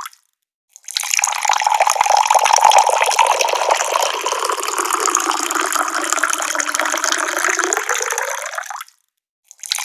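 Water running steadily from a tap, an even splashing rush. It cuts out abruptly for under a second at the start and again near the end, then resumes.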